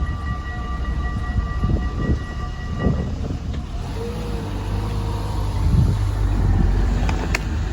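Level crossing bells ringing steadily and stopping about three seconds in, over a continuous low rumble. A sharp click near the end.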